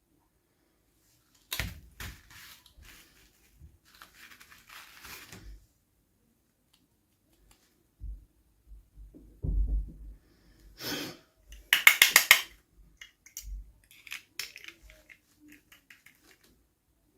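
Small plastic toy pieces and packaging being handled in an unboxing: scattered clicks and taps, a few soft thumps and stretches of crinkling, with the loudest a rapid crackle of plastic about twelve seconds in.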